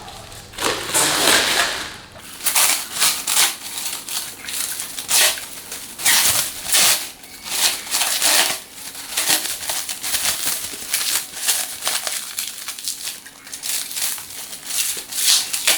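Packaging wrap being pulled off and crumpled by hand: irregular crinkling and crackling rustles while a slip-on exhaust silencer is unwrapped.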